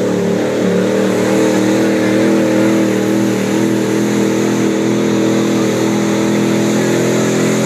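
Pulling truck's engine held at high revs under heavy load as it drags a weight-transfer sled, a loud steady drone with little change in pitch.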